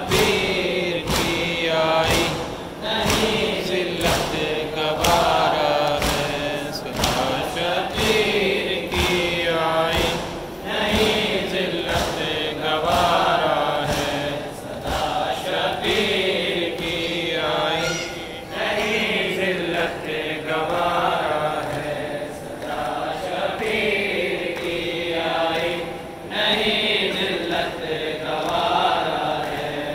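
A crowd of mourners chanting a noha, a Shia lament, in unison. Sharp rhythmic beats of about two a second run through it, typical of matam, chest-beating in time with the lament.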